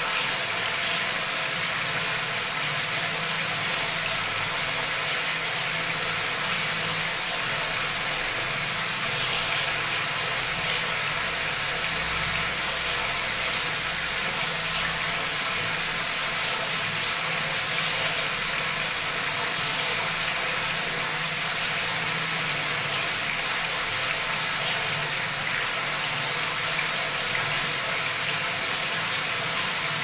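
Bathroom tap running at full flow, a heavy stream of water splashing into a tiled tub filled to the brim: a steady rushing hiss.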